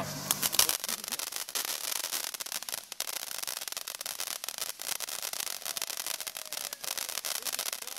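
Ground fountain firework spraying sparks: a steady hiss laced with fast crackling, dropping away at the very end.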